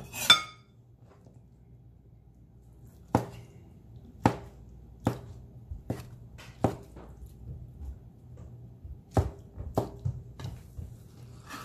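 A large kitchen knife chopping through boneless cooked chicken onto a wooden cutting board: a short scraping sound just after the start, then about nine sharp knocks of the blade on the board in two runs, roughly one chop a second.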